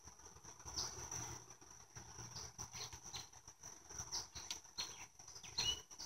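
Faint clicks and knocks of wooden frames being handled and set into a hive box, scattered irregularly, over a steady high-pitched whine.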